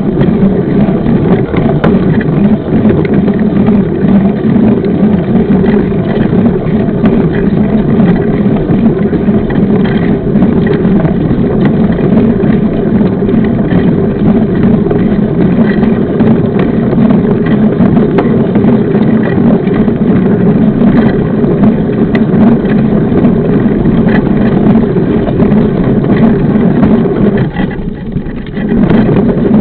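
Steady rush of wind on the microphone and rolling tyre noise from a mountain bike riding along a trail, dipping briefly near the end.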